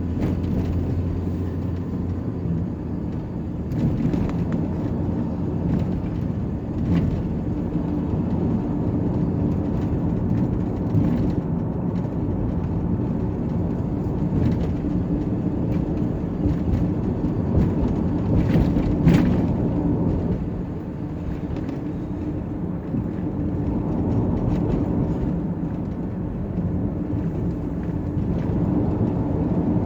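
Truck driving with its engine running steadily and road noise, with a few brief knocks about two-thirds of the way through.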